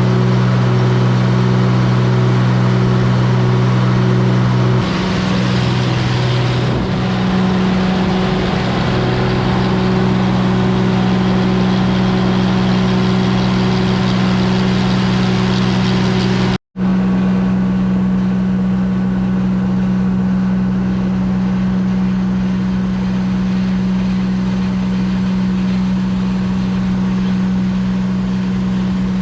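Grain combine running steadily while harvesting wheat: a loud, even engine and threshing drone with a deep steady hum, shifting slightly about five seconds in and briefly cutting out a little past the middle.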